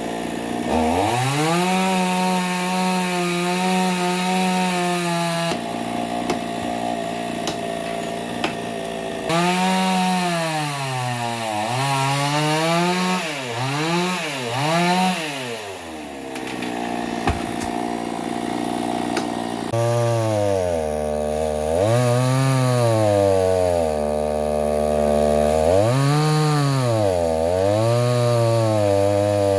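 Chainsaw engine cutting into a tree, its pitch held high for several seconds, then repeatedly revving up and falling back as the throttle is worked.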